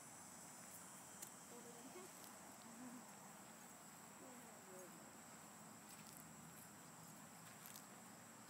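Near silence with a faint, steady high-pitched chorus of crickets, and a few faint clicks about a second in and near the end.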